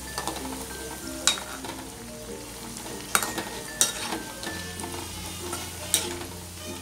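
Vadai deep-frying in hot oil in an aluminium kadai: a steady sizzle, broken by a few sharp clinks of a metal slotted spoon against the pan as the fritters are turned.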